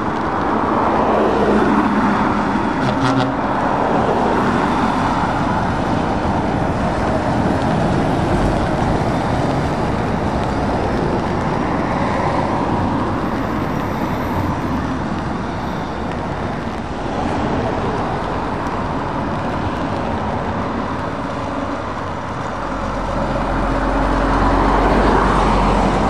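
Road traffic passing: cars and heavy truck tractor units driving by one after another, tyre and engine noise swelling and fading with each pass. Near the end a truck's deep diesel engine rumble builds as it passes close.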